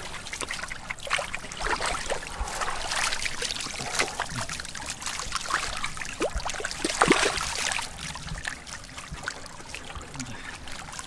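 Shallow swamp water splashing and trickling in irregular bursts, loudest about seven seconds in.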